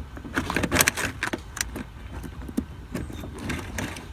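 Thin electrical wires being pulled back through a hole in a car's firewall, rustling and scraping with a string of irregular light clicks, the loudest about a second in.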